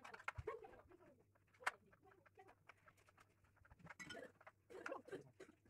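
Faint clicks and scraping of hard 3D-printed plastic model-aircraft parts being handled and fitted together by hand. There is one sharper click a little under two seconds in, and a longer scraping rustle near the end.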